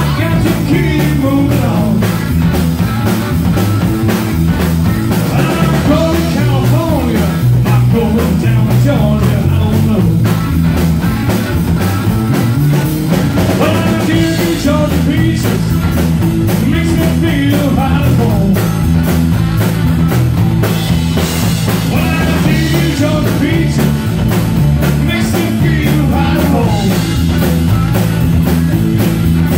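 Live band playing: electric guitar, electric bass and a drum kit keeping a steady beat, with male vocals coming in at times.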